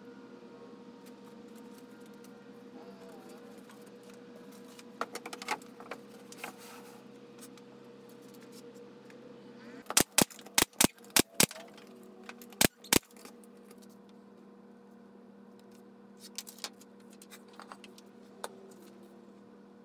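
A nail gun firing eight sharp, loud shots, six in quick succession and then two more about a second later. A faint steady hum runs underneath.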